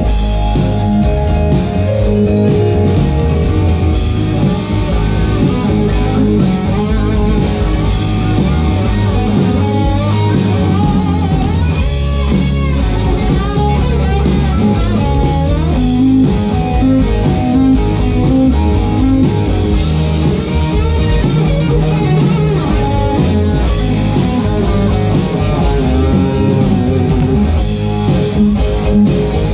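Live rock band playing through outdoor PA speakers: guitars over bass and a drum kit, without singing.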